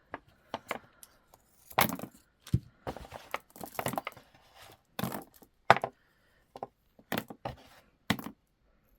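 Strand of Picasso jasper stone round beads being handled: a run of irregular sharp clicks and clacks as the beads knock together, with some rustling.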